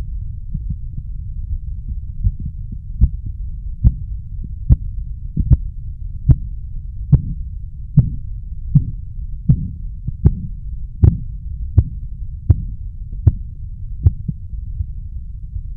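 Korotkoff sounds through a stethoscope over the arm's artery as a blood-pressure cuff deflates: sharp taps a little more than one a second over a steady low rumble. They start faint about two seconds in, grow louder through the middle, then fade out near the end; the first tap marks the systolic pressure and their disappearance the diastolic.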